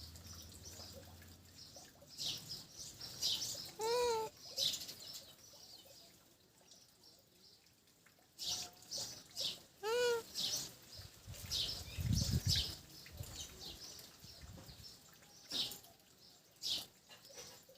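Alexandrine parakeet giving a scatter of short, high chirps, with two louder arching squawks about four and ten seconds in. A low thud comes about twelve seconds in.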